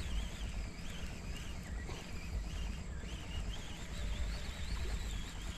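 Open-air wetland ambience: a steady low rumble under repeated high, wavering chirps of small wildlife.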